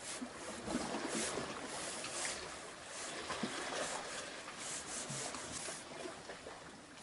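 Table knife scraping pâté across slices of bread, a run of spreading strokes.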